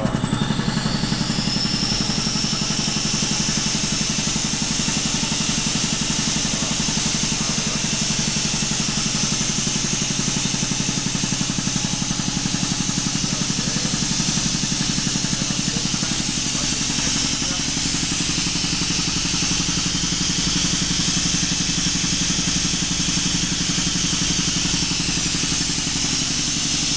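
Ingersoll Rand 15T2 three-stage reciprocating air compressor pump running steadily on a 22 kW electric test bench, with a rapid even pulsing from its pistons under a steady hiss. It is compressing air into a test tank during a post-overhaul test run.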